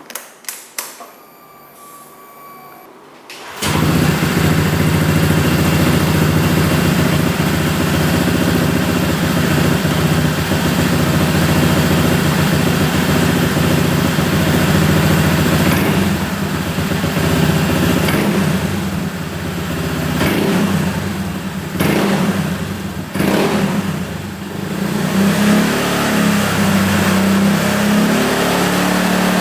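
A few clicks, then about three and a half seconds in a single-cylinder scooter engine starts and idles steadily through a DX Racing SR1 'standard racing' exhaust, a stainless-steel muffler with a carbon cover. In the second half the throttle is blipped several times, and near the end the revs rise and fall.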